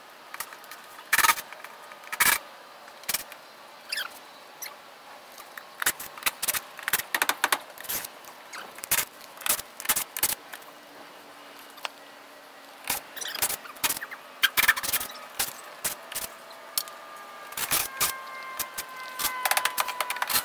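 Irregular sharp clicks, snaps and scrapes of hand work on a screen room's wooden frame, as screen and 1x2 batten strips are pulled away.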